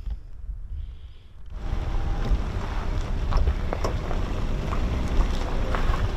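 Wind buffeting the microphone: a steady rushing noise with a heavy low rumble. It starts abruptly about a second and a half in, after a quieter low rumble, and a few small clicks are scattered through it.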